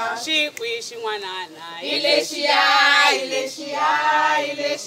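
A group of women singing a song together while dancing, several voices at once with no instruments.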